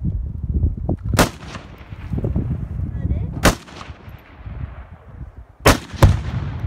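Scoped rifle fired three times, about two seconds apart, each shot a sharp crack. Right after the third shot comes a second, louder boom as an exploding target on the hillside is hit and goes off.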